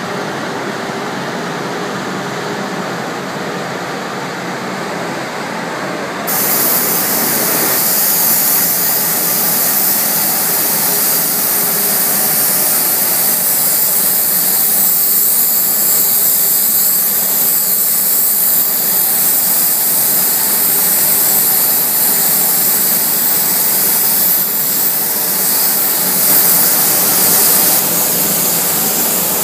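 Compressed-air gravity-feed spray gun hissing steadily as it sprays a coating. About six seconds in, a sharper, louder hiss cuts in over a steady mechanical hum and keeps going.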